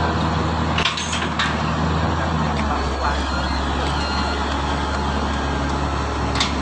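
Komatsu excavator's diesel engine running steadily with a deep, even hum, with a couple of short clicks about a second in.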